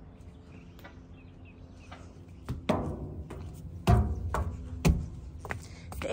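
Footsteps on a metal stairway with diamond-plate treads: four or five heavy steps about a second apart, starting a little over two seconds in.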